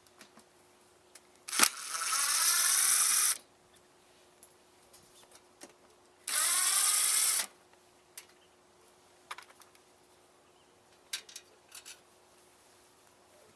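Power drill driving out the screws of a camper water heater's access door, in two runs: one of about two seconds near the start and a shorter one about six seconds in, each winding up in pitch as it starts. Light clicks and knocks of parts being handled in between.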